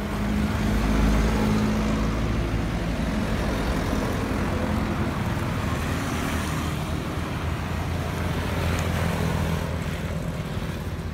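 A motor vehicle's engine running, with a steady low hum and road noise, loudest about a second in.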